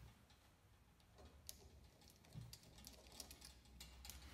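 Faint, scattered small clicks of a small screwdriver turning the pump's retaining screws back into a Coleman lantern's metal fount.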